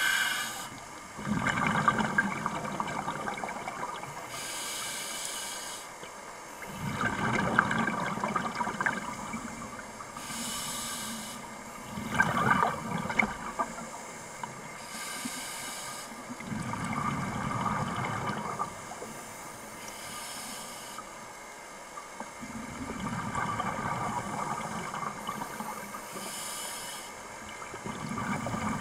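Scuba diver breathing underwater through a regulator: a short hiss on each inhale, then a couple of seconds of bubbling on each exhale, repeating about every five to six seconds.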